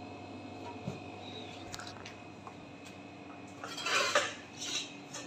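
Low steady hum with a few faint clicks; about four seconds in, two short bursts of clattering as things are handled close by.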